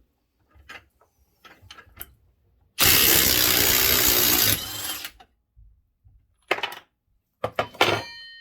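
Ryobi 18V One+ HP brushless 1/2-inch impact wrench on its mid-torque setting, hammering in reverse for just under two seconds to back off a 5/8-inch nut. Small handling clicks come before it, and a metallic clink rings out near the end.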